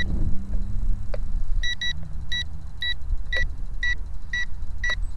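Electronic beeping from the toy quadcopter's radio transmitter: short high beeps, a quick pair at first and then about two a second, beginning nearly two seconds in. Underneath is a steady low rumble of wind on the microphone.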